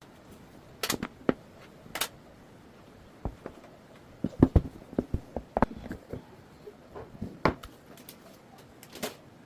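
Packaging being handled during an unboxing: irregular clicks, taps and short rustles. The densest cluster of knocks falls near the middle.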